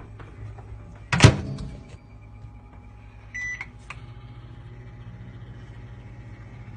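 Microwave oven being started: its door shuts with a loud knock about a second in, the keypad beeps a few times about three and a half seconds in, and the oven then runs with a steady hum.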